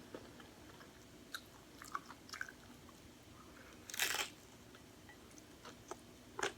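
Someone eating a crunchy hard-shell taco: scattered small chewing clicks, with one loud crunch about four seconds in as the shell is bitten.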